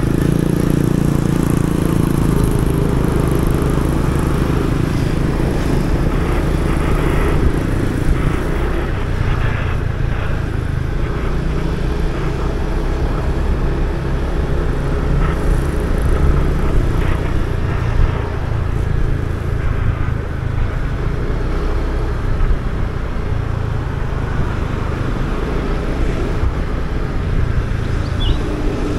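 Motorbike ridden through town traffic, heard from the rider's seat: the engine runs steadily under a heavy low rumble of wind and road noise.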